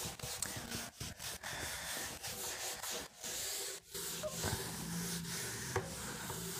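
Scratchy rubbing noise in short strokes, broken by brief pauses.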